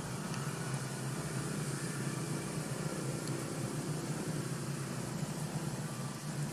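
Steady low hum over an even hiss, unchanging throughout, with no distinct sounds standing out.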